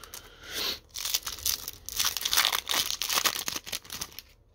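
Topps hockey sticker pack wrapper torn open and crinkled by hand: a run of irregular crackling and tearing rustles lasting about three and a half seconds.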